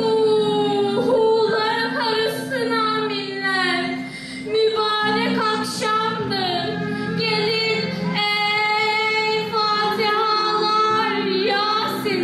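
A girl's voice singing a slow, ornamented melody, long held notes sliding and wavering between pitches, over a steady low drone.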